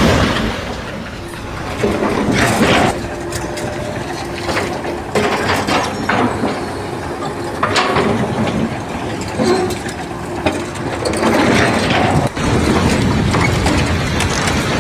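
Mechanical clatter with irregular knocks and clanks.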